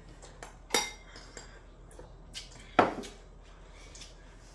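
A spoon and tableware clinking against ceramic bowls and plates: two sharper clinks, about a second in and just under three seconds in, with lighter taps between.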